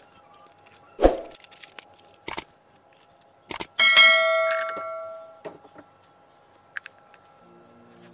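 Subscribe-button sound effect: a few mouse clicks, then a bright bell ding about four seconds in that rings out over a second or so.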